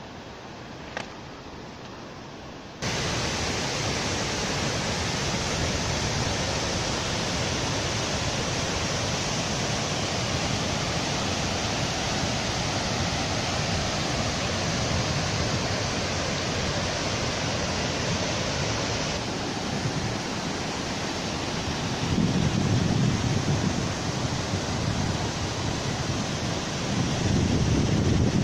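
Steady rushing of glacial meltwater streams running over rock and scree, coming in abruptly about three seconds in after a quieter hiss. Wind buffets the microphone twice in the last several seconds.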